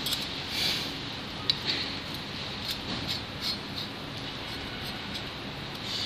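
Light ticks and scrapes of a hex screwdriver and small metal screws being worked into a model's frame plates, over a steady background hiss.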